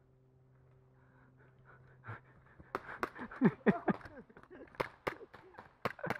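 A person panting and gasping hard, the breaths voiced, short and falling in pitch, starting nearly three seconds in and growing louder. Sharp clicks are scattered through the breathing.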